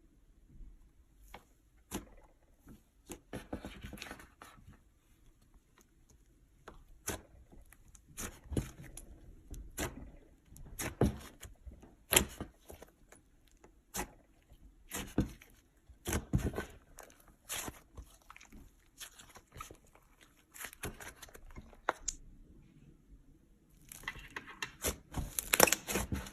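Slime being pressed, poked and stretched by hand, giving irregular sticky pops and crackles, with a denser run of crackling near the end.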